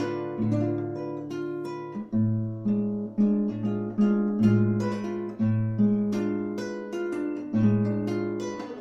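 Acoustic guitar playing chords, struck in a steady rhythm with ringing bass notes.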